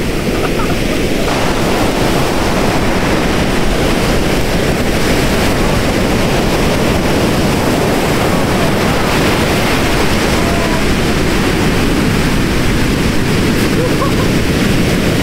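Heavy ocean surf: waves breaking and washing up the sand in a steady, unbroken noise, with wind on the microphone.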